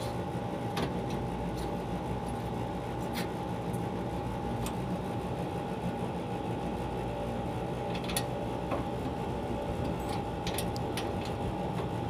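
A steady mechanical hum with a constant tone in it, and a few faint metallic clicks as an Allen key turns the brass service valve on a split AC outdoor unit to open it.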